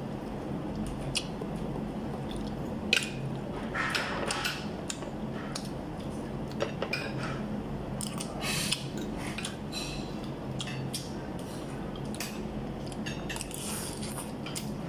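Spoon and fork clicking and scraping on a ceramic plate of rice and milkfish, in scattered short strikes, the sharpest about three, four and eight seconds in, with chewing between them. A steady low hum runs underneath.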